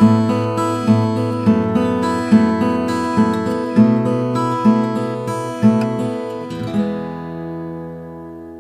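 Acoustic guitar music: chords strummed in a steady rhythm, then a last chord left ringing and fading away about seven seconds in.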